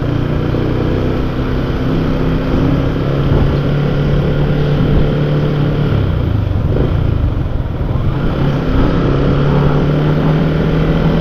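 Motorcycle engine running under way, a steady note that eases off about six seconds in and builds again about two seconds later.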